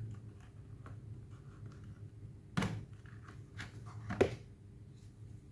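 ThinkPad T450 laptop battery being unlatched and removed: faint plastic clicks, then two louder knocks about a second and a half apart, over a steady low hum.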